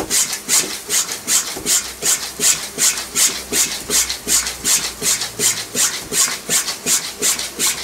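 Bicycle floor pump inflating a mountain bike tyre: a steady rhythm of quick strokes, each a short hiss of air, about four a second.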